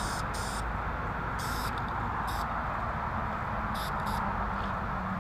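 Aerosol spray paint can hissing in several short bursts as the nozzle is pressed and released: a couple at the start, then single bursts spaced a second or so apart, two close together around four seconds in. Steady background noise runs underneath throughout.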